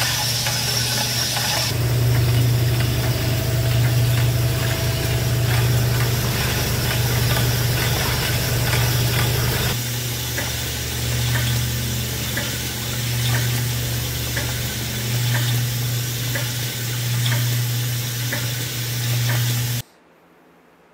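Honing bench running, its hone spinning inside an oil-flooded cast-iron steam engine cylinder: a steady machine hum under a hiss of oil and stones scraping the bore, with a thin high squeal in the first couple of seconds. The sound cuts off suddenly about a second before the end.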